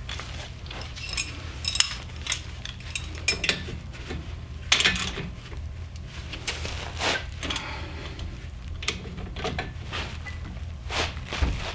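Metal hand tools and brake parts clinking and knocking against each other in a series of irregular sharp clinks, the loudest about two, three and five seconds in, over a steady low hum.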